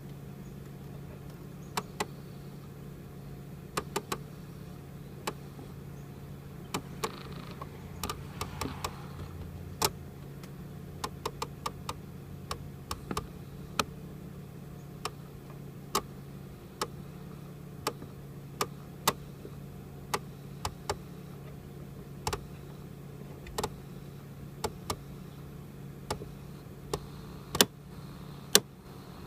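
Irregular sharp clicking from inside the dashboard behind the glove box of a 2001 Mercedes ML320, which happens when the climate control is set to cold. The clicks come about once a second, sometimes in quick twos and threes, and are loudest near the end, over a steady low hum.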